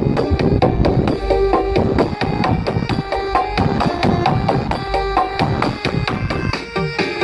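Loud, drum-heavy music played through a large carnival sound system, with a fast, steady hand-drum pattern and sustained melodic notes.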